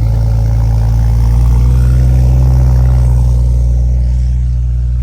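A car engine running at a steady speed, a deep, even hum with no revving.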